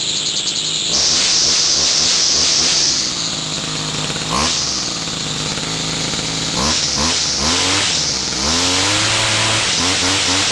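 Homelite two-stroke string trimmer engine running, blipped several times in quick succession with the pitch sweeping up each time, then held at a steady higher speed near the end.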